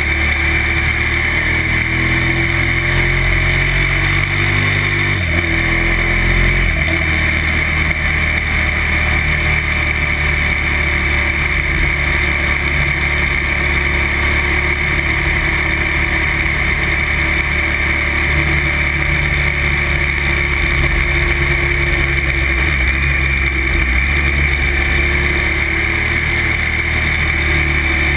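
Motorcycle engine running at road speed, heard from on the bike with steady wind rush. Its pitch shifts up and down over the first several seconds, then holds fairly steady.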